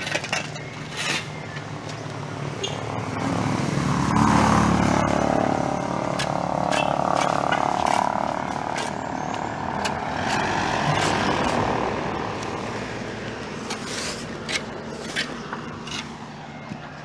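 A motor vehicle passes on the road: its engine noise swells to a peak about four seconds in and fades over several seconds. Steel shovels scrape and clink in sand and gravel, mostly near the start and again near the end.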